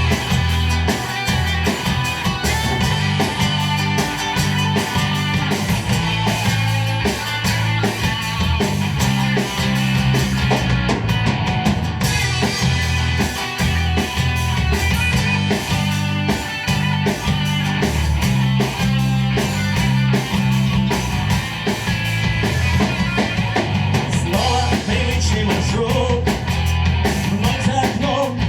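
Rock band playing live, with electric guitars, bass guitar and a drum kit keeping a steady driving beat.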